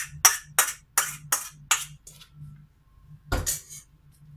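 Quick scraping strokes inside a stainless steel mixing bowl, about three a second, as the last of the minced chicken mixture is scraped out. The strokes fade, then a single thump comes about three seconds in, as the bowl is set down on the counter.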